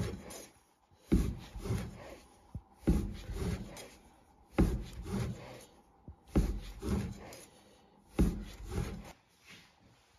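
Large kitchen knife cutting through folded sheets of hand-rolled noodle dough onto a wooden cutting board: about ten strokes, coming in pairs roughly every two seconds.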